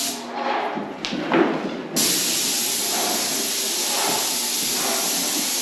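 Graco 695 airless paint sprayer's gun spraying paint with a steady hiss. It is off for about the first two seconds, then comes back on abruptly and holds steady.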